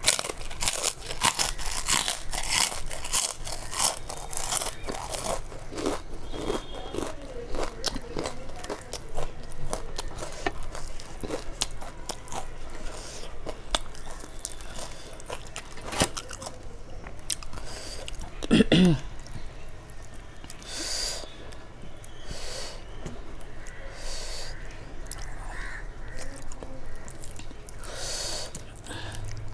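Close-up crunching and chewing of fried papad, with dense crackling bites for the first six seconds and softer chewing and wet mouth sounds after. A loud, short throaty vocal sound with falling pitch comes about 19 seconds in.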